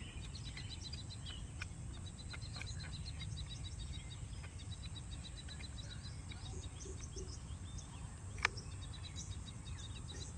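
Faint handling clicks as a hard drive is fitted into its enclosure, with one sharp click about eight and a half seconds in as the drive seats in the connector. Throughout there are repeated trains of high, evenly spaced background chirps over a low steady hum.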